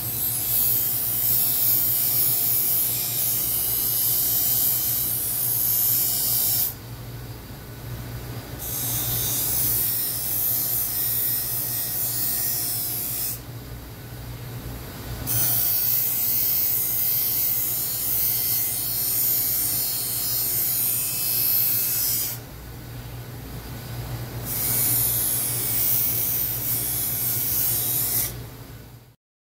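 Continental bench grinder running with a steady motor hum, its wheel working the edges of an aluminium dashboard panel. The metal is pressed to the wheel in four passes of several seconds each, with short gaps where only the motor hums.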